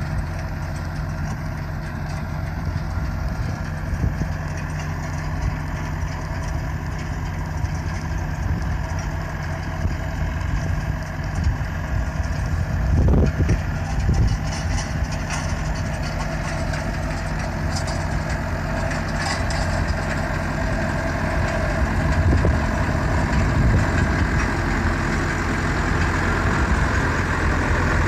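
Diesel engine of a Fermec 760 backhoe loader running steadily at low revs as it creeps along, a low even hum that grows louder near the end.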